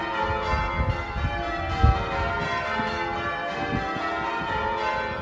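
Cathedral church bells change ringing, many bells struck in turn with their tones overlapping and ringing on. A few low thumps sound underneath, the loudest about two seconds in.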